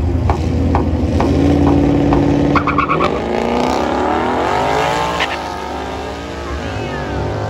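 Twin-turbocharged Ford Coyote 5.0 V8 in a 2019 Mustang GT with a Corsa Xtreme exhaust, idling loud at the drag-strip start line, then launching and pulling hard down the track. The engine note rises from about three seconds in, dips at a gear change around five seconds, and climbs again as the car pulls away. It is a soft launch on low boost, with no trans brake or two-step.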